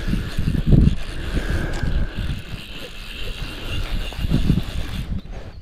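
Irregular low rumbling of wind and hand-handling noise on a close action-camera microphone while a fish is played on a hard-bent rod. A faint steady high tone runs underneath and stops near the end.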